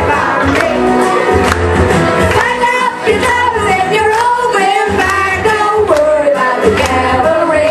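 A group of women singing together into microphones over a karaoke backing track with a steady beat and bass.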